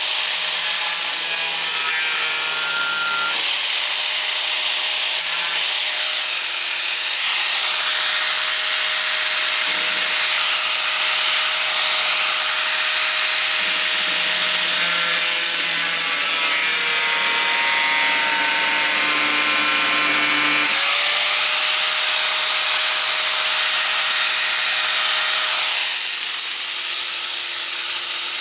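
A 4.5-inch angle grinder with a cutoff wheel running steadily as it cuts sheet metal, its pitch shifting several times as the load on the wheel changes.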